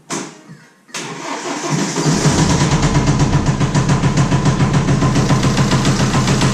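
BMW N47 four-cylinder diesel engine started: two sharp clicks, brief cranking, then it catches about two seconds in and runs loud with a fast, even pulsing knock. The knock sounds like a failed connecting-rod bearing, rod or piston, which the mechanic puts down to too much or too little oil.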